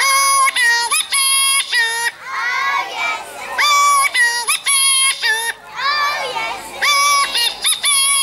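Punch and Judy swazzle voice of Mr Punch: a buzzy, reedy squawk in a string of short held notes, with other voices rising and falling in the gaps between them.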